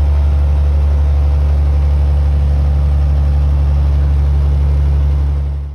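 Cat 6NZ C15 diesel of a Western Star 4900SB truck running steadily under way, a deep, unchanging drone heard inside the cab, fading out near the end.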